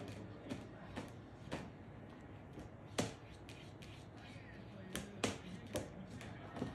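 A cat pawing and scrabbling at crinkly plastic packing inside a bag: irregular rustling and crackling, with a few sharper snaps, the loudest about three seconds in and a cluster around five seconds in.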